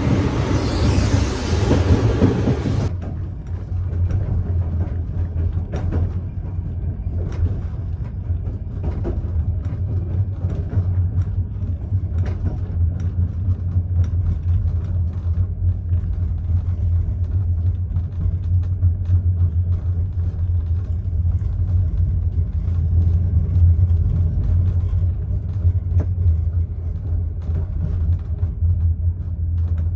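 Running noise of a moving sleeper coach. For about the first three seconds there is a loud full-range rush and rattle at the coach's door. After an abrupt change it becomes a steady low rumble inside the car, with faint scattered clicks from the wheels on the track.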